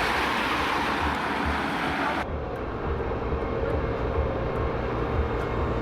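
A vehicle engine running steadily under a loud rushing hiss; about two seconds in the hiss cuts off abruptly, leaving the engine's low rumble and a steady hum.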